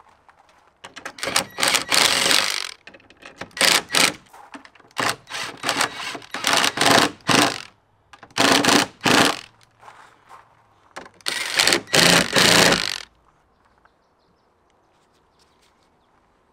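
Cordless drill driving the bolts of a camper's jack bracket in repeated short bursts, which stop about three seconds before the end.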